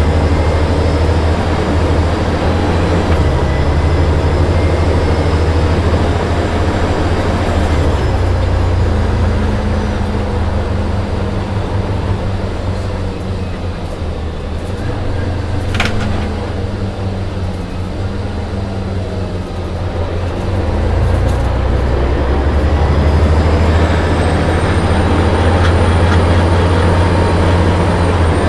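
A coach's rear-mounted Detroit Diesel Series 60 14-litre six-cylinder turbo diesel, heard from inside the cabin while under way, with road noise. It makes a steady low drone that eases off about halfway through and builds again for the last third. A single sharp click comes near the middle.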